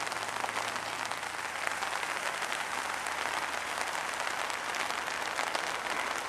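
Steady rain falling, a dense even patter of drops.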